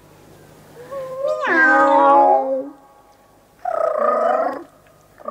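A human voice imitating a cat. It gives one long drawn-out meow that rises and then falls in pitch, then a shorter rough, rolled 'rrrr' in imitation of purring.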